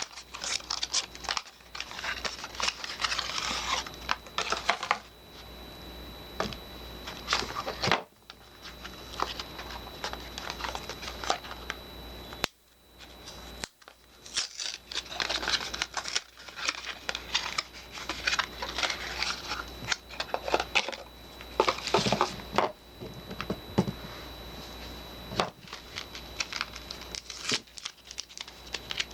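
Soap packaging being unwrapped: crinkling and tearing of wrappers in dense, crackly handling bursts, broken by two short pauses, one about eight seconds in and one near the middle.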